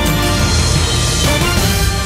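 News bulletin theme music for the station ident: loud, dense music with a steady beat.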